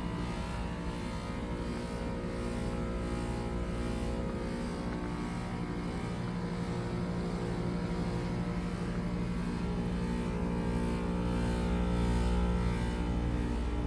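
Two Carrier Performance Series heat pump outdoor units in defrost mode, their compressors giving a steady electrical hum with a light hiss over it, swelling slightly near the end.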